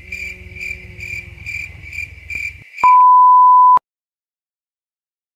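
A high chirp repeating about twice a second over a low hum. About three seconds in it gives way to a loud, steady one-second beep that cuts off sharply into dead silence.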